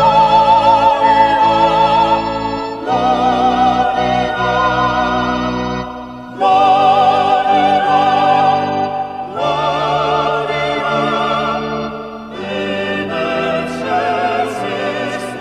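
Slow classical sacred music: voices singing with vibrato over sustained low notes, the chords changing every three seconds or so.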